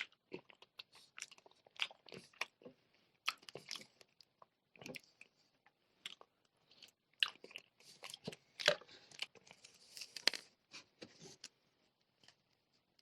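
Close-miked eating of spicy noodles with crispy fried chicken: irregular crunchy bites and chewing that stop about a second and a half before the end.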